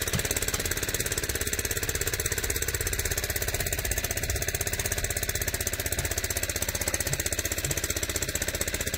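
Small engine-driven transfer pump running steadily with a fast, even chugging beat while it pumps sugar syrup through a hose into feeder pails.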